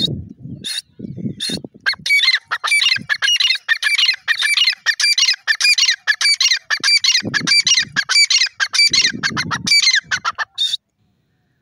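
Grey francolin calling: a few single shrill notes, then a long, loud run of rapid repeated notes that stops near the end.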